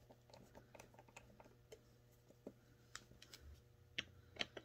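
Faint, scattered small metal clicks and taps of a screwdriver tip working the cover screws of a Tillotson chainsaw carburetor, the tip not seating well in the screw heads. A few sharper clicks come near the end.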